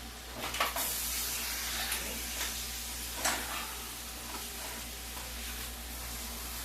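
Food sizzling in a hot frying pan, a steady hiss broken by a few sharp clicks in the first few seconds.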